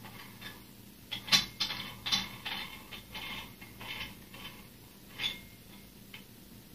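Metal dumbbell bar and weight plates being handled and adjusted by hand: a run of short, irregular metallic scrapes and clicks, the loudest about a second and a half in.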